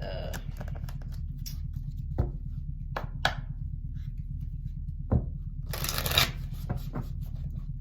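Tarot cards being shuffled and handled: scattered flicks and taps, with a longer riffling burst about six seconds in, over a steady low hum.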